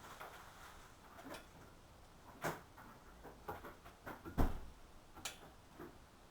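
Irregular metallic clicks and small knocks from hand tools and parts during front brake caliper work, a second or so apart, with one heavier knock about four and a half seconds in.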